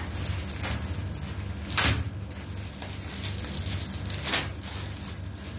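Plastic packaging pouch being opened and crinkled by hand: a string of short crackling rustles, with two louder ones about two seconds in and just past four seconds.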